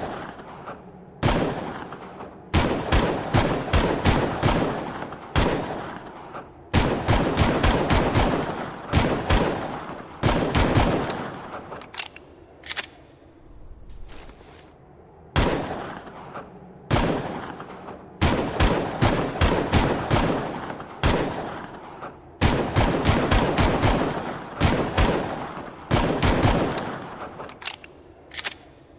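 Gunshots from an AMT .45 Longslide pistol sound effect: single shots and quick runs of several shots, each ending in a fading echo.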